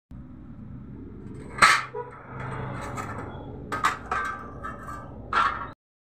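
A few sharp metallic clicks and clinks of a small metal clamp bracket being handled and set against a ceiling fan's motor housing, over a low steady background hum. One loud click comes early, then a quick cluster of knocks midway and another near the end. The sound cuts off abruptly.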